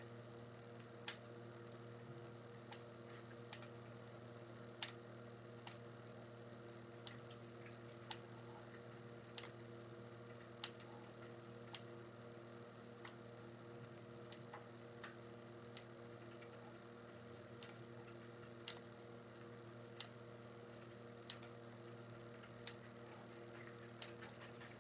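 Steady electrical hum with a thin high whine. Over it, a light click comes about every second or so, from the plastic pull handle of a batter dispenser squirting batter into the brownie pan.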